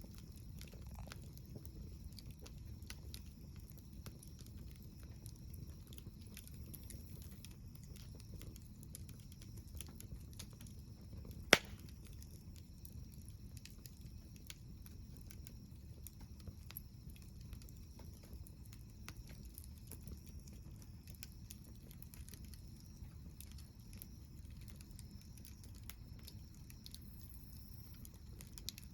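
Wood campfire crackling with scattered small snaps and one loud, sharp pop about a third of the way in, over a low steady rumble.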